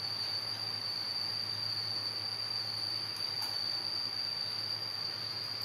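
A steady high-pitched whine, one unbroken tone, over a faint low hum.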